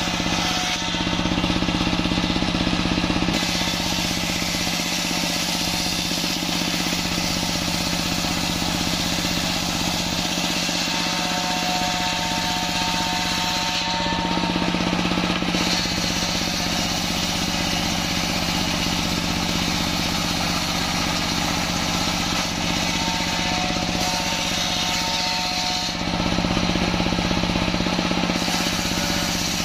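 Table circular saw driven by a stationary diesel engine, running steadily while planks are ripped along the blade. It gets a little louder for a few seconds near the start and again near the end.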